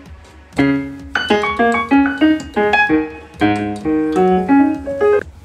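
Electronic keyboard played with a piano sound: a string of struck single notes and chords at varying pitches, starting about half a second in.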